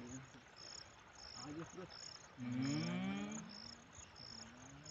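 Insects chirping in a steady, even rhythm, about three high chirps every two seconds. A brief voice-like call rises over them about halfway through.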